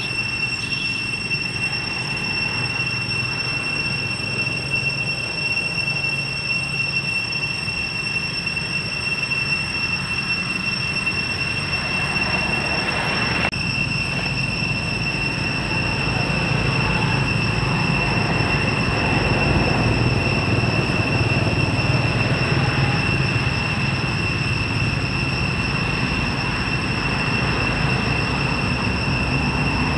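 A steady high-pitched whine over a continuous low rumble of outdoor background noise, a little louder after a change about halfway through.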